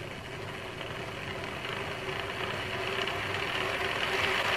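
OO gauge model diesel shunter's electric motor and gear drive running on rolling road rollers, steadily getting louder as it speeds up, with no buzz from the motor.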